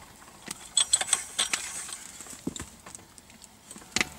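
Irregular metallic clicks and clinks from the bar, vise and red-hot Damascus billet as the billet is twisted. There is a quick cluster about a second in and a louder clink near the end.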